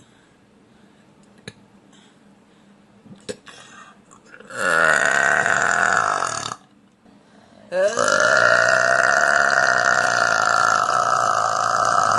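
A woman burping loudly, twice: a burp of about two seconds some four and a half seconds in, then after a short pause a long, drawn-out burp held at a steady pitch for several seconds.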